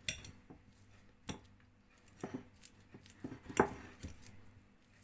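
A metal fork mashing pieces of banana in a dish, with a few sharp clinks of the fork against the dish about a second apart.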